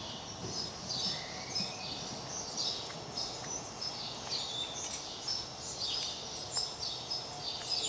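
Small birds chirping over and over, short quick calls that repeat every fraction of a second, above a steady faint background noise.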